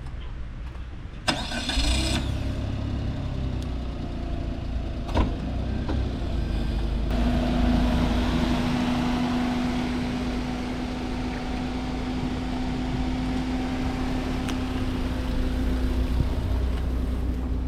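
Suzuki Every kei van's engine starting about a second in, then idling steadily, with a sharp click about five seconds in and a steady hum joining from about seven seconds.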